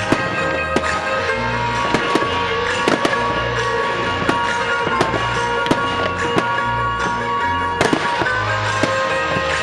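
Fireworks going off over loud music, a string of sharp bangs and cracks at irregular intervals of about a second, with sustained musical chords and a repeating bass line underneath.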